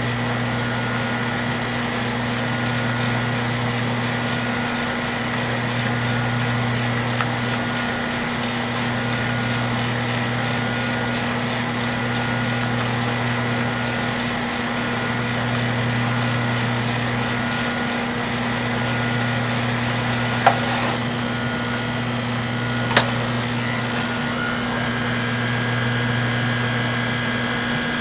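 The tape transport of a Samsung DVD-V9800 DVD/VCR combo whirs steadily as it fast-winds a VHS cassette, with a low hum that swells and fades every few seconds. About twenty seconds in come two sharp clicks, after which the sound changes and a thin high whine sets in as the tape reaches its end and the deck keeps trying to wind it.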